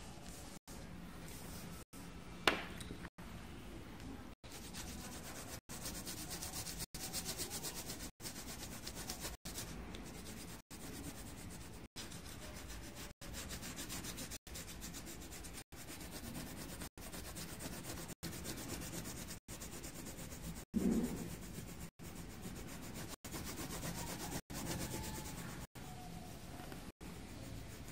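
Coloured pencil shading on paper: a steady scratchy rubbing, broken by very short regular gaps. A sharp tap sounds about two and a half seconds in, and a louder dull thump around twenty-one seconds.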